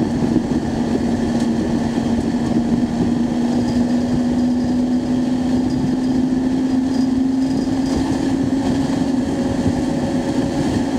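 Acura Integra Type R's 1.8-litre VTEC four-cylinder engine, heard from inside the cabin, pulling under acceleration on track: a steady engine note rising slowly in pitch, easing back slightly near the end.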